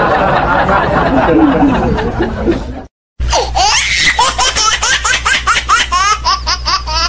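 Laughter. First comes a dense stretch of mixed laughing, then a short cut to silence, then a high-pitched laugh in quick rising 'ha' notes, about four a second, over a low steady hum.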